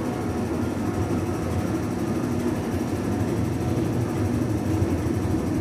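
Steady low rumble of a metro train running in an underground station, with no clear start or stop.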